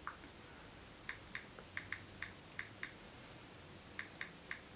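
About a dozen faint, light clicks at an uneven typing pace, the key clicks of a phone's on-screen keyboard as a message is typed.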